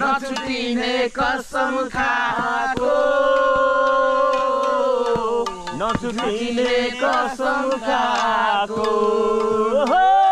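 A voice singing a Nepali folk song unaccompanied, with long held, gliding notes.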